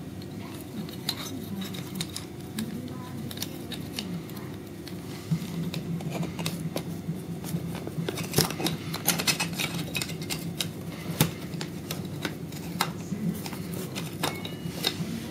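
Steel brackets, wheels and fittings of a freeline skate being handled and fitted together on a table: a long run of small metal clicks and clinks, busier and louder from about halfway through.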